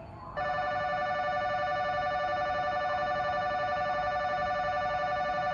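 Electronic station departure bell ringing in a fast, steady trill that starts about half a second in, signalling that a train is about to depart.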